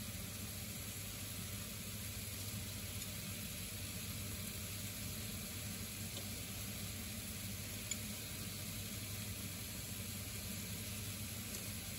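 Chicken pieces and whole spices frying in oil in a nonstick frying pan, a steady sizzle as the spices toast. There is one sharp click about eight seconds in.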